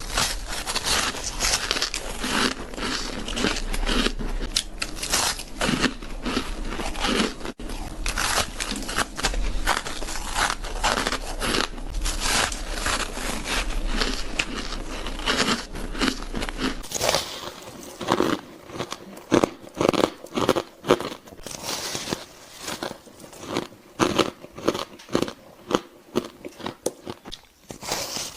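Close-miked crunching of soft ice and freezer frost being bitten and chewed: dense, rapid crunches for the first two-thirds, with a faint low hum underneath. After an abrupt change about two-thirds of the way in, the crunches come as more spaced-out single bites.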